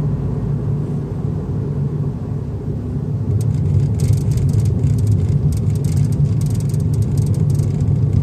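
Suzuki Solio Bandit running with a steady low rumble. From about four seconds in, rapid, irregular high clicking or rattling sets in: the abnormal noise whose cause the owner does not know.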